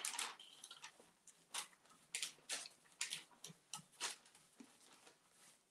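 Paintbrush dabbing and stroking top coat over decoupage paper on a flowerpot, with the paper rustling: a series of short, irregular scratchy strokes.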